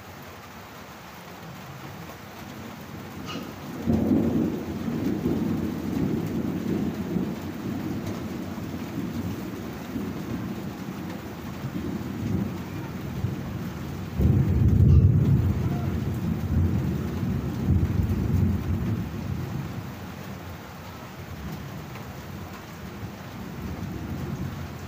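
Steady rain with thunder: a low rumble breaks in about four seconds in and rolls on, a second louder peal comes about fourteen seconds in, and the rumbling dies away near the end.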